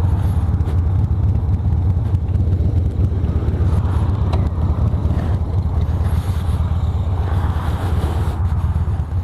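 Harley-Davidson motorcycle's V-twin engine running steadily.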